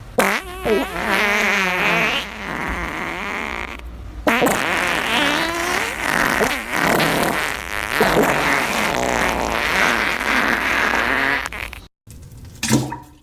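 Long, wavering fart sound effect with bending pitch, dipping briefly about four seconds in and cutting off near the end.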